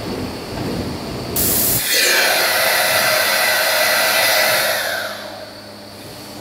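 Large CNC milling machine cutting a steel block. After a low rumble, a loud metal-cutting noise with a high whine starts suddenly about a second and a half in, then fades out about five seconds in, leaving a steady machine hum.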